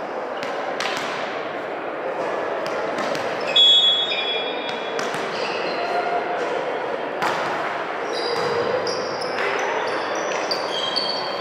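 Indoor volleyball rally: several sharp hits of the ball, the loudest about three and a half seconds in, with short high squeaks of shoes on the court over players' calls and crowd chatter echoing in the hall.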